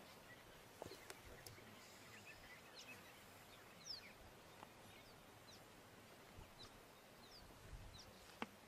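Near silence, with faint, scattered short bird chirps and a few soft clicks.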